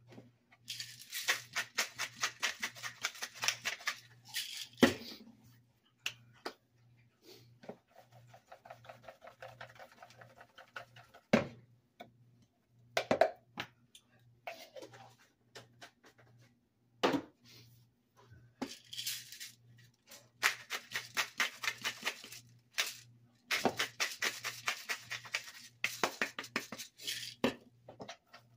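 A disposable black peppercorn grinder twisted in several runs of rapid clicking, with single knocks as bottles and a plastic container are set down on a countertop.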